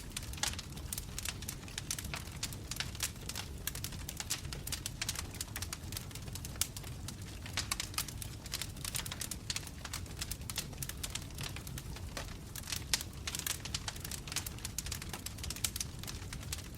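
Wood logs burning in a fireplace, crackling with many quick, irregular pops over a steady low rumble of the flames.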